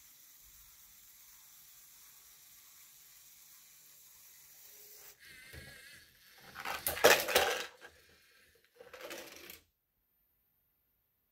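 LEGO robot trash truck's grabber and track lift hauling a small plastic trash can up to its container: a faint wavering motor whine, then a loud burst of plastic clattering and rattling, and a shorter burst about two seconds later.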